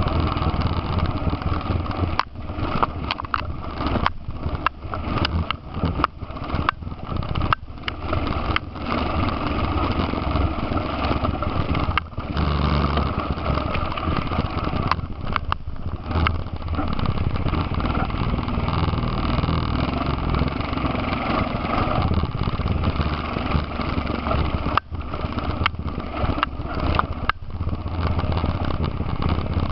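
ATV engine running as the quad rides over a rough grassy trail, heard from the machine itself. The sound dips out briefly again and again during the first several seconds and again near the end.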